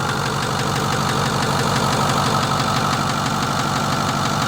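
Ford 6.4 L Power Stroke V8 diesel idling with a fast, even ticking knock riding on it, the "bang, bang, bang" noise of the fault being chased.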